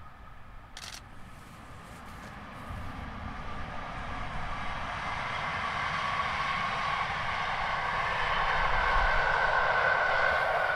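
DR class 211 electric locomotive with three coaches running past, its rolling and running noise growing steadily louder as it approaches.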